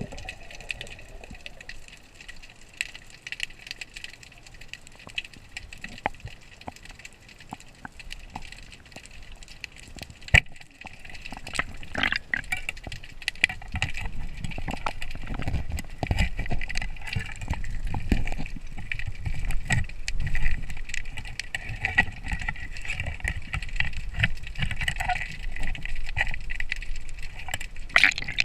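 Water sounds during a spearfishing dive: gurgling and sloshing with scattered sharp clicks and crackles, and low rumbling movement that grows busier about halfway through.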